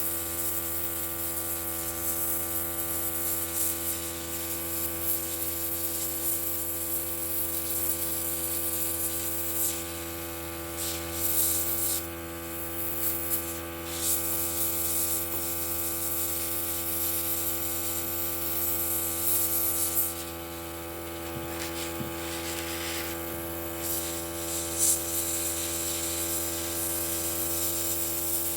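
Small airbrush compressor running with a steady hum, under the hiss of air and paint spraying from the airbrush. The hiss drops away briefly a couple of times as the trigger is eased off.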